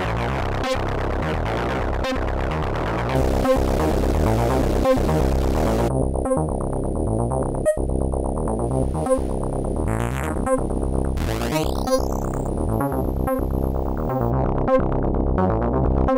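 Dreadbox Typhon analogue monosynth playing a repeating sequenced bass pattern. About six seconds in, its bright top end drops away and a thin high whistle holds for a few seconds. Near eleven seconds, bright tones sweep upward.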